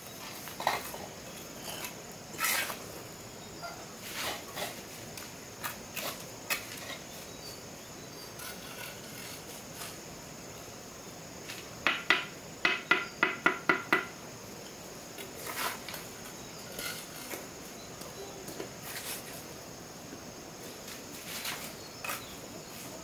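Scattered sharp clinks and knocks of brick-and-mortar work, with a quick run of about eight taps, roughly four a second, near the middle.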